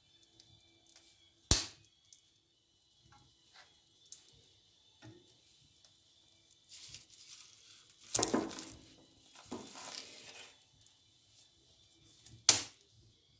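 Wood being fed into an open wood stove's firebox: a sharp knock of wood against the stove, a few seconds of scraping and rustling as a birch log is pushed in over the burning kindling, and another sharp knock near the end.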